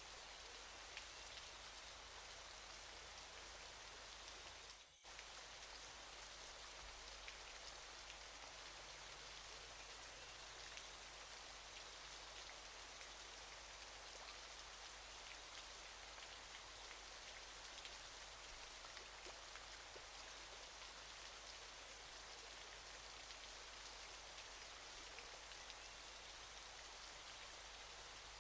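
Faint, steady hiss of falling water from a waterfall, with tiny droplet ticks in it. The sound dips out for an instant about five seconds in.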